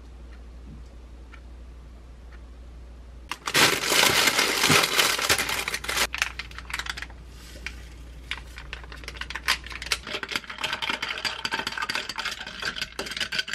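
Parchment paper crinkling and rustling loudly as it is lifted and folded around roasted pork and vegetables in a bowl, starting a few seconds in. It is followed by lighter clicking and clinking, like ice knocking in a glass as a drink is stirred with a straw.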